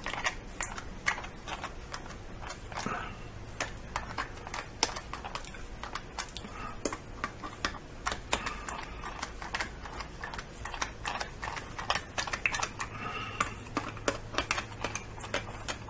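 Hand screwdriver driving screws into a plastic charger housing: a steady run of small, irregular clicks and ticks as the blade turns in the screw heads and the case is handled.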